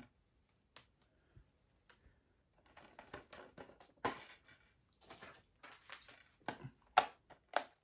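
Rustling and several sharp clicks from a SteelBook disc case and its packaging being handled and put away.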